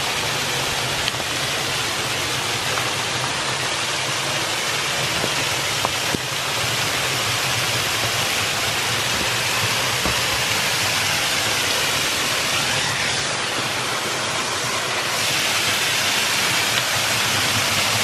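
Waterfall pouring over a rock ledge into a pool: a steady rush of falling water, a little louder over the last few seconds.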